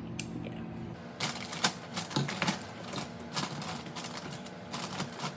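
Drinks being set into refrigerator shelves: a quick, irregular run of light clicks and knocks, starting about a second in.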